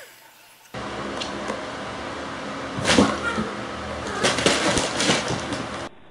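Startled house cats jumping and scrambling: a few sharp thumps and scuffles, with a cat's voice among them.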